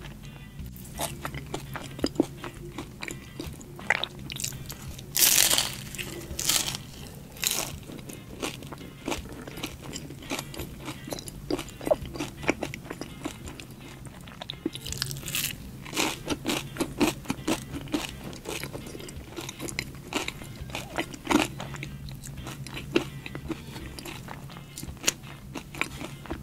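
Close-mic eating sounds: crunchy bites into a crispy fried pastry, followed by chewing. The loudest crunches come about five seconds in and again around fifteen seconds in.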